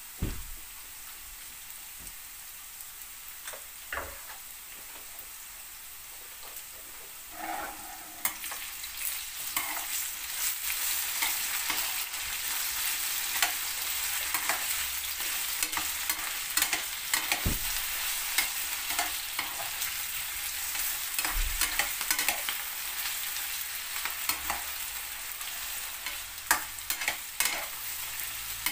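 Diced potatoes frying in oil in a pan. The sizzle is soft at first, then grows louder and busier about eight seconds in, as the potatoes are stirred and turned with a metal spatula that clinks and scrapes against the pan.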